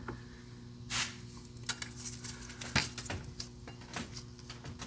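Scattered small metal clicks and taps, with a brief scrape about a second in, from hand tools and small parts being handled at an engine's bleed port. A steady low hum runs underneath.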